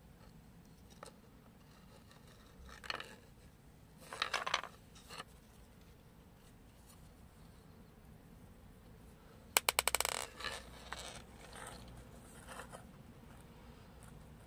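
Hands handling a wooden spoon and picking at a steel BB lodged in the split wood: a few faint scrapes and knocks, then a quick rattle of clicks about two-thirds of the way through.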